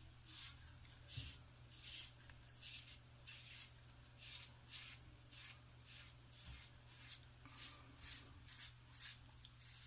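Double-edge safety razor scraping through lathered stubble on an against-the-grain pass: a faint, quick scratch with each short stroke, about one or two strokes a second.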